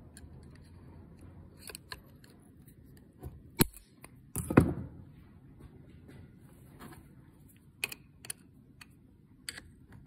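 Metal clicks and taps of snap-ring pliers and a steel snap ring being fitted onto a shaft over a ball bearing. A sharp click comes about three and a half seconds in and a louder knock about a second later, then a few lighter clicks near the end.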